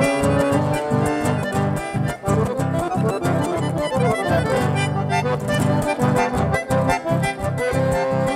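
Button accordion playing a lively chamamé tune, with guitar accompaniment, over an even, rhythmic bass pulse. About four seconds in, the melody runs downward over a held low chord, then the pulse resumes.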